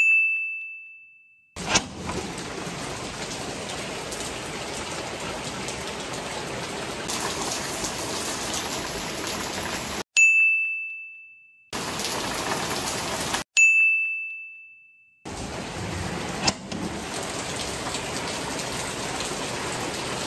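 Steady rain, broken by three bright ding chimes that ring and fade over about a second and a half each: one at the start, one about ten seconds in and one about thirteen and a half seconds in. Two sharp taps stand out from the rain, about two seconds in and again at about sixteen and a half seconds.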